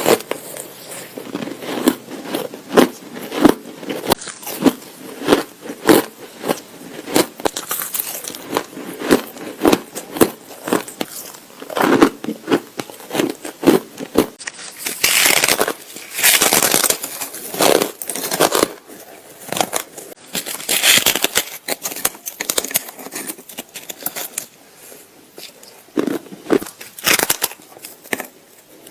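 Close-miked crunching of ice being bitten and chewed: a fast run of sharp cracks, with longer, denser stretches of crunching about halfway through.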